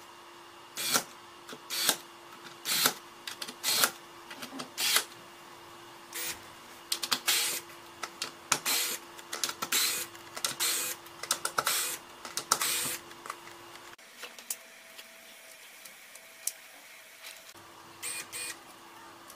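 A 220 V industrial handheld electric screwdriver runs in a dozen or so short whirring bursts, each under a second, driving wood screws into a board one after another. It pauses for a few seconds near the end, then runs briefly twice more.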